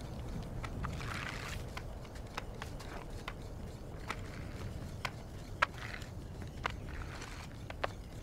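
Low, steady rumble of blizzard wind with irregular sharp knocks and a few short scrapes from pilgrims walking and prostrating on a snowy road.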